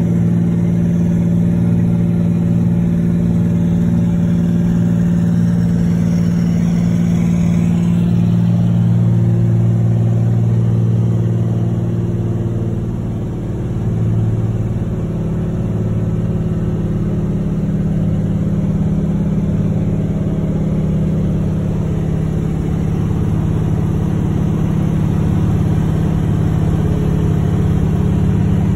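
Floatplane's piston engine and propeller heard from inside the cabin, a loud steady drone at takeoff power; about halfway through the sound eases briefly and shifts pitch as power is adjusted, then runs steady again.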